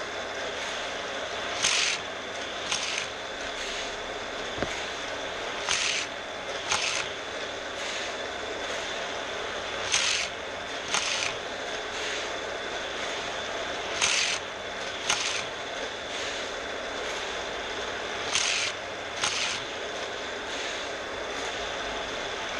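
Battery-powered Hot Wheels track boosters running with a steady motor whine, while two die-cast cars lap the orange plastic track. Every four seconds or so the pair of cars shoots through a booster, a short rushing burst for each car about a second apart, five times over.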